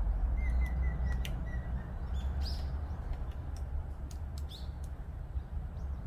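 Small birds in winter trees: a quick run of about six short high chirps in the first two seconds, then scattered sharp ticks and a few short call notes, over a steady low rumble.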